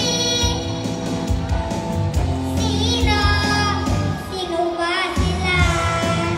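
A young boy singing into a microphone over backing music, amplified through a PA loudspeaker, in short sung phrases with brief breaks.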